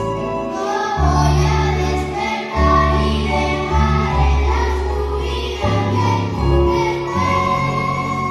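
A children's ensemble of guitars and other plucked strings plays a piece live, with bass notes changing about once a second under the melody, and children's voices singing along.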